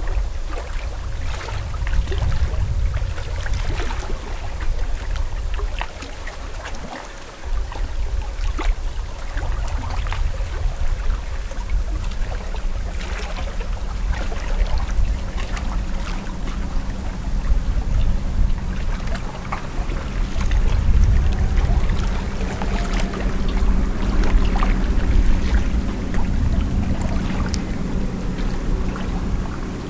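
Wind rumbling on the microphone over small waves lapping and splashing at the lake's edge. From about two-thirds of the way in, a low steady motor hum joins it.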